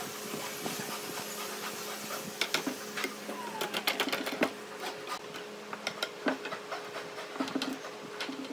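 Thin wooden strips clicking and tapping against one another and against a notched wooden block as they are handled and slotted in, thickest around the middle, over a steady low hum.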